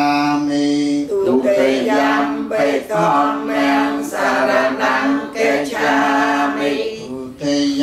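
Congregation of Buddhist lay devotees chanting together in unison, a slow melodic recitation of long held notes that step to a new pitch now and then.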